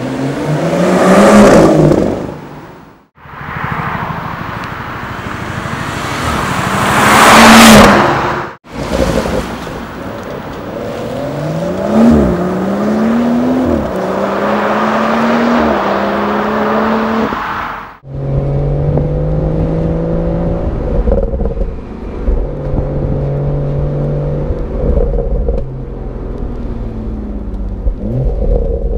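BMW M240i's turbocharged 3.0-litre straight-six accelerating hard, in a string of short cuts. First come two passes where the note swells and rises, then a run where the pitch climbs and drops back several times as it changes up. Last is a lower, steadier exhaust note with brief rises.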